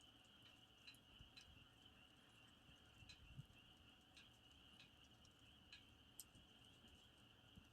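Campfire burning, with faint, scattered crackles and pops at irregular moments over a steady high-pitched chirring in the background.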